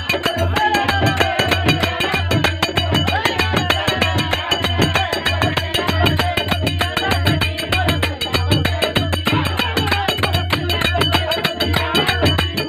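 Phagua (Holi folk song) ensemble playing: a harmonium melody over a dholak drum and a fast, steady clashing of brass jhal hand cymbals.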